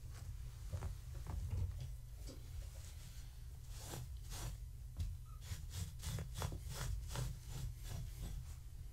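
Scratching and rubbing strokes on a cloth sheet laid over the floor, a few at first, then a busier run of about three strokes a second from about four seconds in. A steady low hum runs underneath.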